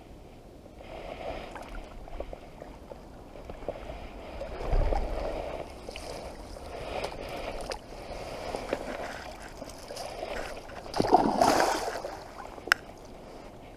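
Water splashing and sloshing in uneven bursts, loudest about five and eleven seconds in, with a sharp click near the end.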